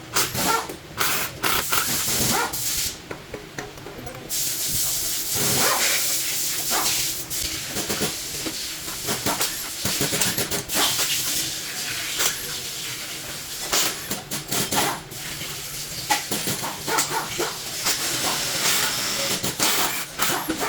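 Workshop sounds of automatic transmission repair: metal parts and tools clinking and knocking, with a steady hiss like air or spray starting about four seconds in and running on.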